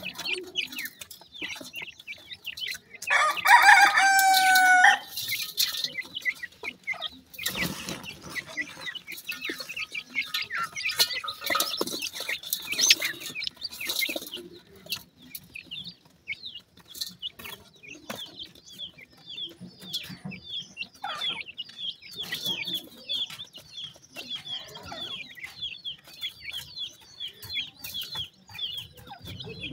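Young francolin chicks peeping: a steady run of short, high chirps, with scratching and rustling in dry soil and feed. One loud, drawn-out call stepping down in pitch comes a few seconds in.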